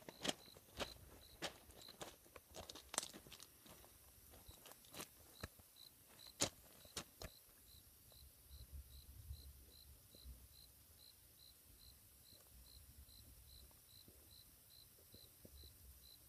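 Footsteps and handling knocks for the first several seconds. Through it all an insect chirps faintly, in a steady rhythm of about two to three chirps a second.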